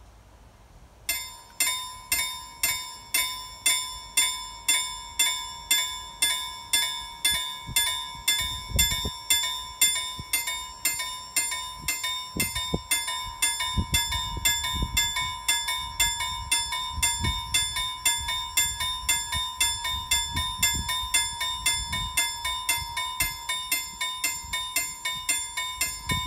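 Railroad level-crossing warning bell starting up about a second in and then ringing steadily at about two strikes a second, the signal that a train is approaching and the crossing is closing. Some low rumbling comes and goes under the bell in the middle.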